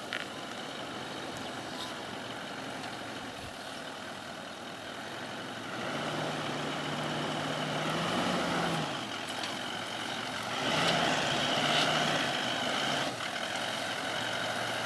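Vehicle engine pulling slowly up a steep, rocky creek-bank rise. It is steady at first, works harder from about six seconds in, eases near nine seconds, then works harder again for a couple of seconds before settling.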